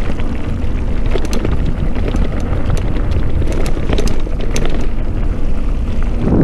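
Wind buffeting a handlebar-mounted camera's microphone while a mountain bike is ridden over a dirt trail. The wind rumble runs under a scatter of sharp clicks and rattles from the bike jolting over bumps.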